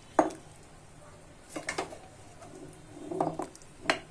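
Serving spoon clacking and scraping against a steel pot and a serving bowl while ladling thick curry: a sharp knock just after the start, clustered scrapes and wet taps around the middle and just after three seconds, and another sharp knock near the end.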